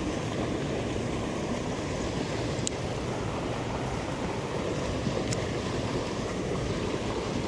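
Water pouring out of a spillway culvert pipe into a pool, a steady rushing sound. Two faint high ticks come about a third and two thirds of the way through.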